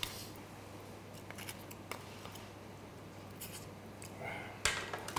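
Faint, scattered clicks and cracks of a cooked crab shell being pulled apart by hand and of utensils touching plates, with one sharper crack near the end.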